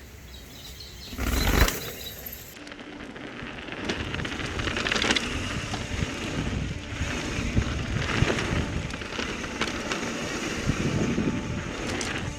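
Mountain bike being ridden on a trail: steady tyre and trail noise with scattered rattling clicks and knocks over rough ground, and wind on the microphone. A brief loud rush comes about a second and a half in.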